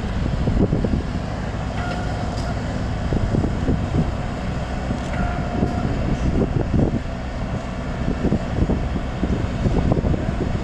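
Wind buffeting the microphone over a steady low diesel rumble from the mobile crane and heavy-haul trucks lifting the Orion spacecraft. Two brief faint whines come through, about two and five seconds in.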